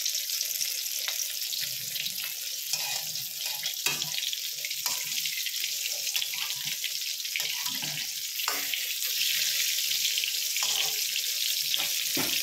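Eggplant slices (begun bhaja) frying in hot oil in a wok: a steady hissing sizzle with scattered crackles and pops, a little louder in the second half.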